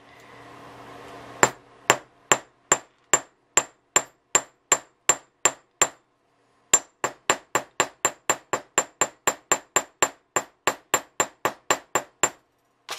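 Hammer striking the clipped end of a copper nail on a steel anvil block, peening it over to set a rivet through two strips of metal tape measure. Sharp metallic blows with a high ring: about a dozen at a steady pace, a brief pause, then a quicker run of about twenty lighter taps.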